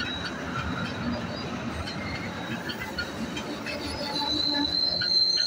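MBTA commuter rail train running along the tracks with a rumble and a steady high-pitched wheel squeal. The squeal and the overall sound grow louder about four seconds in.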